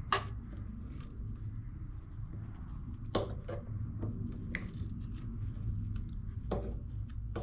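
A few sharp snips and clicks, scattered several seconds apart, as tangled string is cut away from around a push mower's blade spindle, over a steady low hum.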